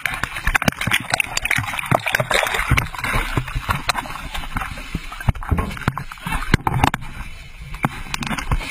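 Seawater splashing and sloshing as people move through it, with many knocks and rustles on the camera's microphone.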